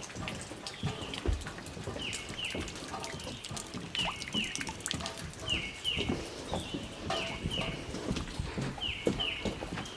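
A bird repeating a short, high two-note call about every one and a half seconds, each note falling in pitch, with scattered clicks and knocks.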